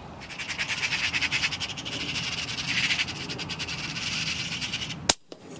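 Magpies chattering in a rapid rattle, about ten notes a second. About five seconds in comes a single sharp shot from a .22 FX Crown pre-charged pneumatic air rifle firing a slug, the loudest sound here.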